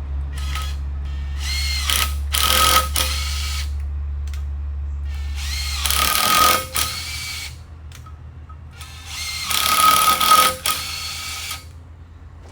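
A power tool run in four short bursts, each spinning up and down. Under them runs a steady low hum that stops about six seconds in.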